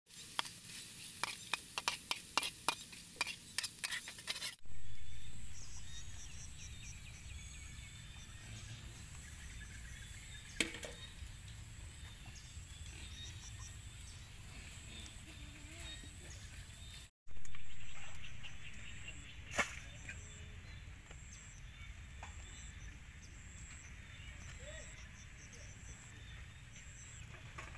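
Potato slices frying in a wok, a metal spatula clicking and scraping against the pan many times over the sizzle of the oil. About four and a half seconds in this cuts to outdoor ambience: a steady low rumble with repeated short high bird chirps and an occasional single sharp knock.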